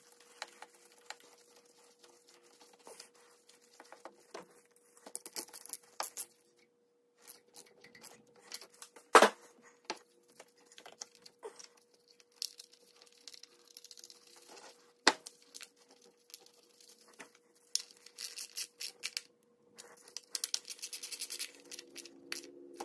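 Hands working at an engine's ignition coils and wiring connectors: scattered plastic clicks and knocks, with a sharp click about nine seconds in and another about fifteen seconds in, and short runs of quick clicking. A faint steady hum lies underneath.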